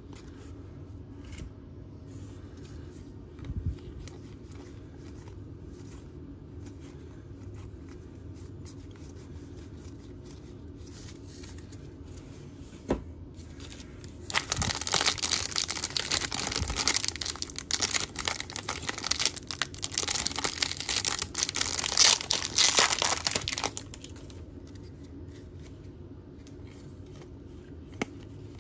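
A baseball card fat pack's wrapper being torn open and crinkled, loud and continuous for about nine seconds from around the middle. Before it, only faint handling sounds and a couple of small clicks.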